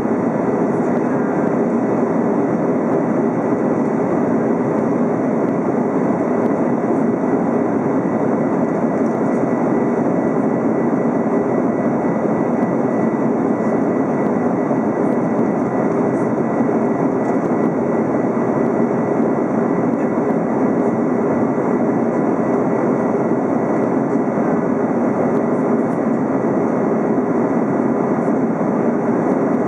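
Steady in-flight cabin noise of an Airbus A330: the hiss of engines and rushing air as heard inside the cabin at a window seat, even and unbroken, with a faint high steady whine over it.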